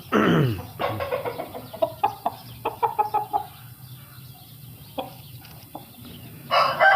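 Roosters: a crow trailing off in a falling cry at the start, then scattered short clucks and clicks, and another loud crow starting near the end.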